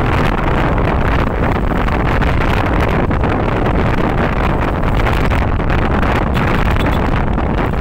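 Steady rush of riding wind over the microphone on a moving Yamaha NMAX scooter, with the scooter's running and road noise beneath it.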